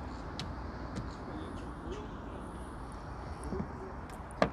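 Steady low outdoor background hum, with one sharp slap of water near the end as a hooked crucian carp is swung out of the pond.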